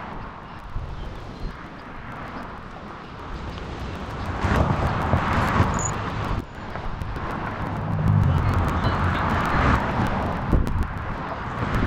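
Road traffic passing, a steady rush that swells about four seconds in and again about eight seconds in, the second swell with a low rumble.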